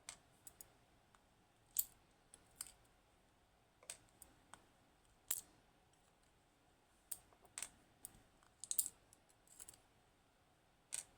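Faint, irregular small clicks and taps of a dimple lock's pins and a small tool being handled and set down as the lock's pin stack is emptied.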